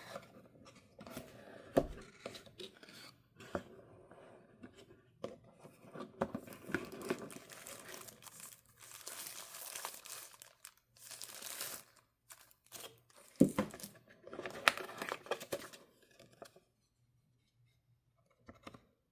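Packaging being handled by hand: irregular crinkling, rustling and tearing of wrapping, with sharp clicks among it, stopping a few seconds before the end.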